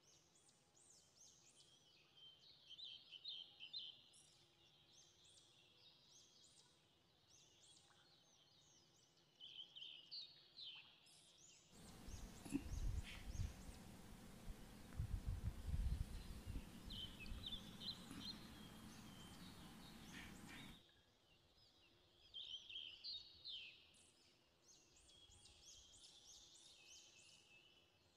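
Faint birds chirping, with short high chirps repeating. In the middle, a stretch of rumbling noise with thumps starts and stops abruptly and drowns them out.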